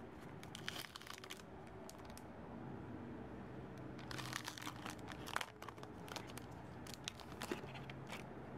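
Clear plastic sleeve crinkling as it is handled and pulled open, in bursts about a second in and again around four to five seconds, with a few light clicks near the end.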